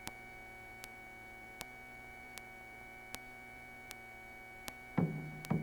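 Faint steady electrical hum with a soft tick about every three-quarters of a second. Near the end, louder sharp knocking or plucked sounds with a low tone start.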